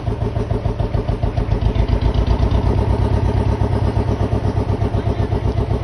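A small engine running steadily, with an even pulsing beat.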